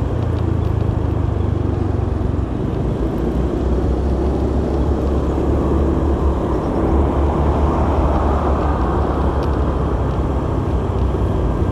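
Honda BeAT scooter's small single-cylinder engine running steadily at cruising speed, heard from the rider's seat with road and wind noise over the phone's microphone.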